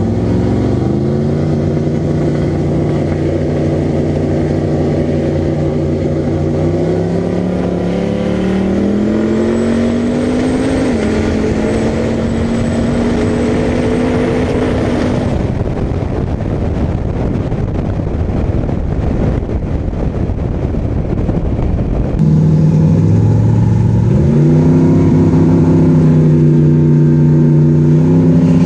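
Turbocharged LSX V8 engines of big-body Chevy drag cars accelerating, the engine note climbing in steps through the gears with a thin high whine over it for a few seconds. About two-thirds of the way through, a sudden change brings another engine whose note rises again.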